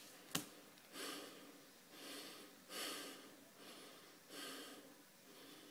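A man breathing audibly through his nose, about five short breaths roughly a second apart, after a single sharp click just after the start.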